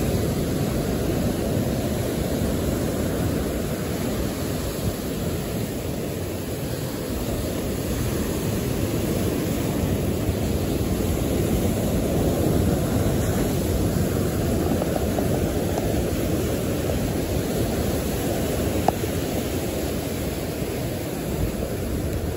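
Ocean surf breaking and washing against a rock jetty: a steady, low rushing noise with no letup. One brief tick near the end.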